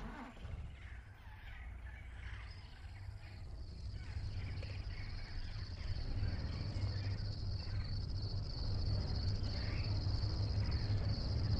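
Crickets trilling steadily at night, with a low engine rumble growing louder underneath as a safari vehicle approaches.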